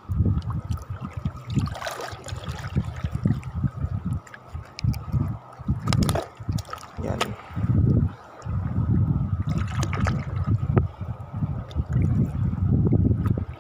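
Wind buffeting the microphone in gusty low rumbles, with shallow seawater lapping around the wading angler; a couple of sharp clicks about six and seven seconds in.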